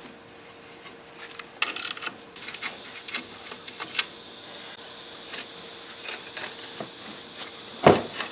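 Irregular metallic clicks and clinks of a hand wrench working a bolt and tapping against a truck's steel suspension and brake line bracket, with a louder knock near the end.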